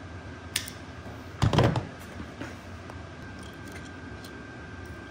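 A hand crimping tool and steel aircraft cable being worked on a metal seat frame: a sharp click, then a louder clunk about a second and a half in, followed by a few faint ticks.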